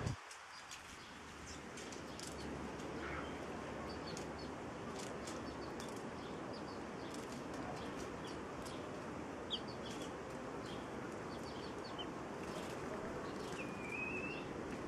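Chicks peeping in short, faint high chirps over a steady hiss, with scattered light ticks; one longer rising peep near the end.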